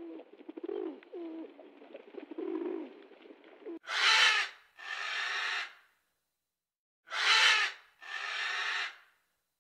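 Rock pigeons cooing in low, repeated calls. About four seconds in, raspy breathing from a sleeping brush-tailed porcupine takes over: a loud, short breath followed by a longer, quieter one, heard twice about three seconds apart.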